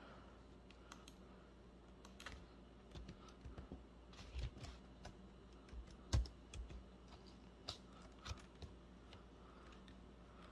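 Faint, irregular typing on a computer keyboard, with a few duller knocks, the loudest about six seconds in.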